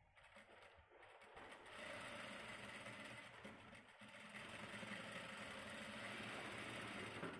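JACK single-needle industrial sewing machine stitching fabric: it starts up in short, uneven spurts in the first second or so, then runs steadily.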